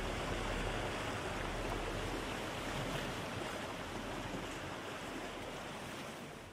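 Ocean waves washing as a steady rush of noise, with no melody or beat, slowly fading out near the end.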